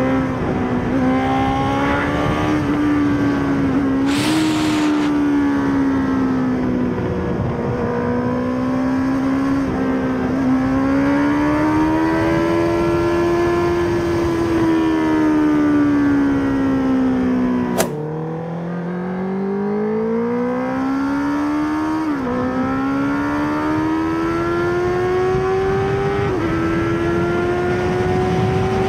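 Honda CB650R inline-four engine through a Mivv GP Pro aftermarket exhaust, heard from onboard at speed. The revs rise and fall with the throttle, and a few gear changes each give a quick drop in pitch before it climbs again. About two-thirds through, a sharp click comes as the revs fall away, then they build again.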